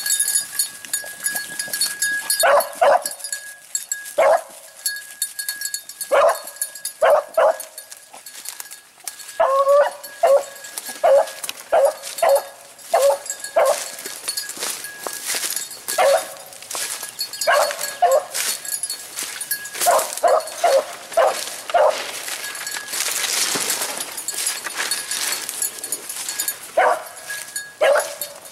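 Beagle barking in short, repeated yelps, in irregular bunches, while trailing a rabbit's scent. A brushy rustle comes about two-thirds of the way through.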